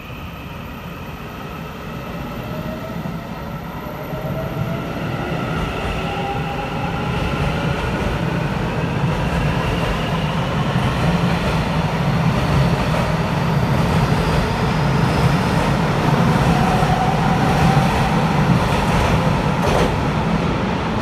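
Taiwan Railways EMU900 electric multiple unit pulling out of the station and accelerating past. Its traction motors give several whining tones that rise slowly in pitch. Under them a steady low rumble grows louder as the cars go by.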